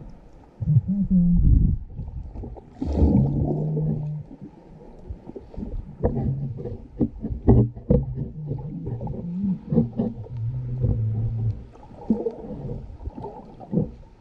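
Experimental soundtrack of low held tones that step in pitch over a deep rumble, with a cluster of sharp clicks and knocks about six to eight seconds in.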